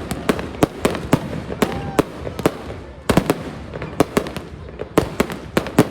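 Fireworks going off: an irregular run of sharp bangs, about two or three a second, with a cluster of louder bangs about three seconds in.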